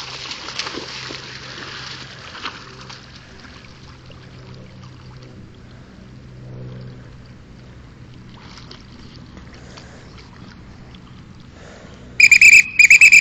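Young black retriever splashing as it bounds into a pond, then swimming quietly. Near the end, two loud, shrill blasts of a dog-training whistle call it back with the retrieve.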